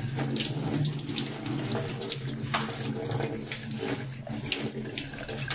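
Kitchen tap running into a stainless-steel sink as an egg is rubbed clean under the stream, with irregular small splashes from the water hitting the hands and egg.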